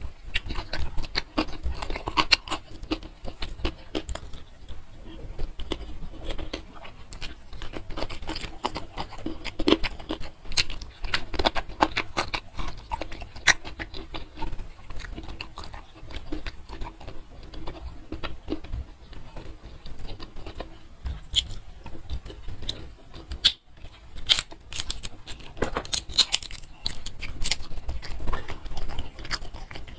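Close-miked eating by hand: fingers squishing rice through green chilli chicken gravy and sambal, with wet chewing and lip smacks, making an irregular stream of small clicks and squelches.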